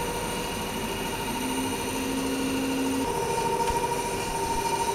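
Haas CNC mill spindle driving a 1/8-inch slitting saw through an aluminum block at full depth of cut: a steady machining whine with several held tones. A lower tone joins for about a second and a half in the middle, and the upper tone grows stronger about three seconds in.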